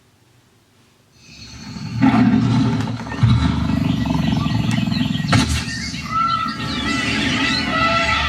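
Movie trailer soundtrack played back through the AUVIO HBT6000 Bluetooth speaker. After about a second of near silence, a low rumbling sound swells in, with birds chirping over it and a couple of sharp hits.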